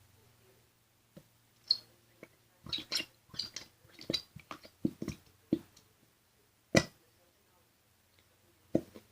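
Plastic bottle of clear Elmer's glue being opened and handled: a run of sharp plastic clicks and crackles, busiest in the middle, with single loud snaps near 2 s, near 7 s and near the end.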